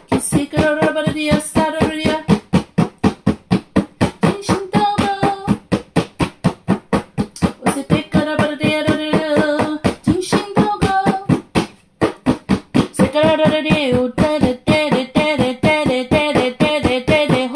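A voice singing in tongues, in wordless phrases of held and wavering syllables with short breaks between them, over a fast, steady drum beat.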